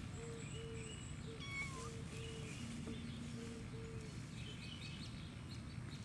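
Black kitten giving one short, falling meow about one and a half seconds in. A faint series of short tones repeats evenly through the first four seconds.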